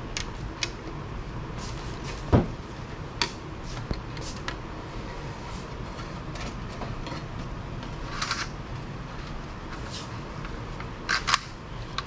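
Scattered small clicks, rattles and knocks of a steel fish tape and tools being handled at a wall electrical box, with one sharper knock about two seconds in, over a steady low hum.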